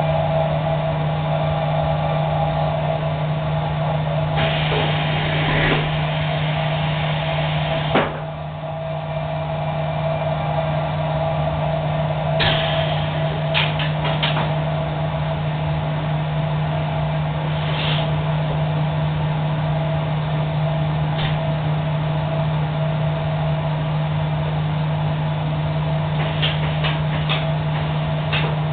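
High-frequency plastics welding machine running with a steady electrical hum. A burst of hiss comes about four seconds in, then a sharp clack at about eight seconds after which the sound briefly drops. Scattered clicks follow later.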